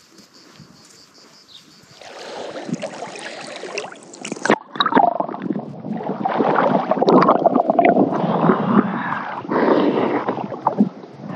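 Sea water splashing, sloshing and gurgling right at the microphone as a swimmer floats and moves, the camera at the water's surface. It starts about two seconds in and is loudest in the second half.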